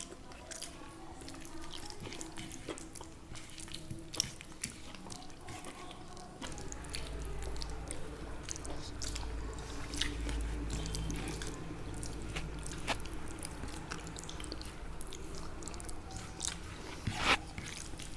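Close-miked chewing and mouth sounds of people eating, with many small scattered clicks and smacks and one sharper click near the end. A low rumble runs underneath for a few seconds in the middle.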